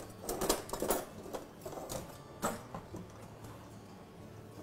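Light clatter of kitchen items being handled at a counter: scattered clicks and knocks, most of them in the first three seconds, then it goes quieter.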